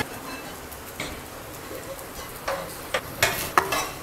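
Steel spatula scraping and clinking against a metal kadhai as crispy fried okra is stirred, several strokes, most of them near the end, over a faint steady sizzle.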